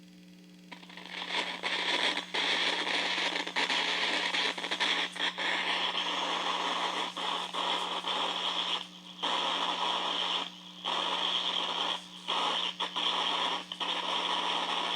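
Loud electronic static, a hissing crackle like an untuned radio, from an RF-detection setup (a TriField meter and a homemade shield pickup) over a steady low hum. It starts about a second in, fluctuates, and cuts out briefly about four times in the second half.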